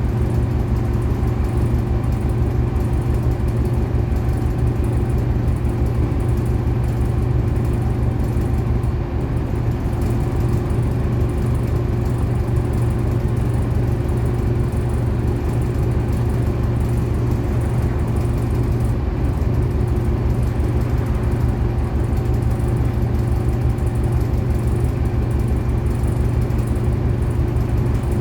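City bus running steadily on the move, a constant engine hum with an even low pulse and road noise.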